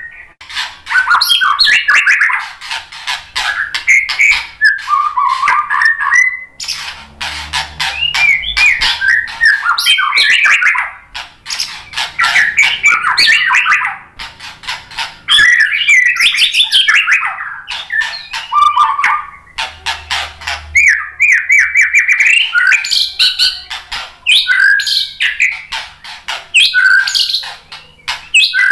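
White-rumped shama singing a long, varied song of quick whistled phrases that glide up and down, mixed with many sharp clicks and rattles, broken only by short pauses.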